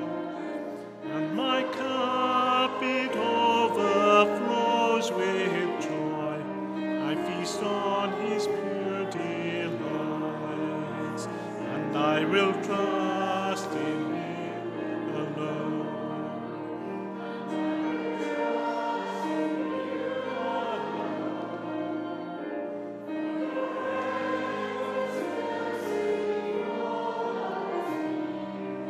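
Congregation singing a hymn together, held sung notes moving from one to the next at a steady level.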